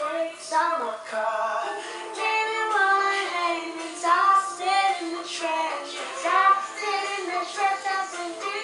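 A young girl singing a pop melody.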